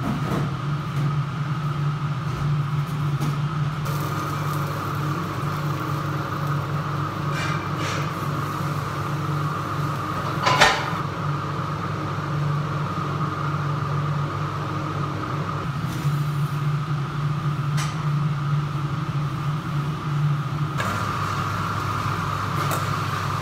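Commercial kitchen extraction hood fan running with a steady hum. A few light clatters of utensils and plates sound over it, the sharpest about ten seconds in.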